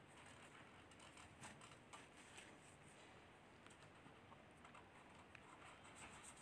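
Near silence, with faint scattered light ticks and rustles of a small knife peeling the papery skin off red garlic cloves.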